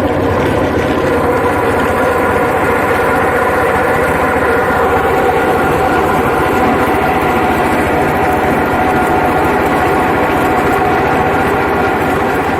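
Motor-driven coffee husking machine running steadily, its engine and husking drum making a constant, unchanging hum with a noisy mechanical rattle.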